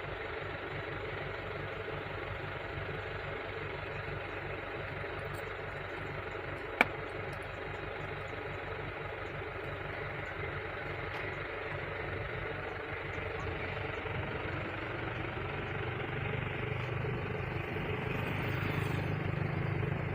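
Vehicle engine idling steadily, with one sharp click about seven seconds in; the low rumble grows a little stronger near the end.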